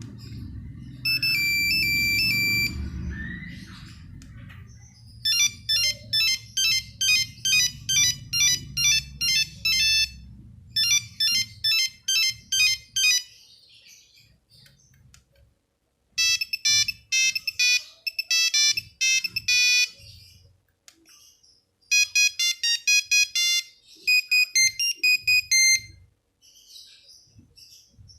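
Nokia 3310 monophonic ringtones, several short melodies of rapid buzzy electronic beeps played one after another, with brief gaps between tunes.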